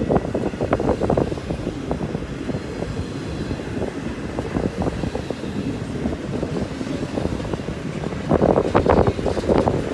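Double-stack intermodal freight cars rolling past close by: steel wheels rumbling and clicking over the rail, with a louder stretch of clatter near the end.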